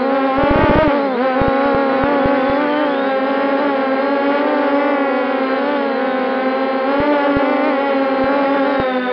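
MJX Bugs 6 racing quadcopter's brushless motors and propellers whining loudly, heard up close from the camera mounted on the drone. The pitch wavers with throttle and dips briefly about a second in. A few short low thumps come early and again near the end.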